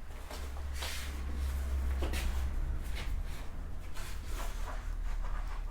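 Room noise with a steady low hum and scattered faint clicks and rustles, no speech.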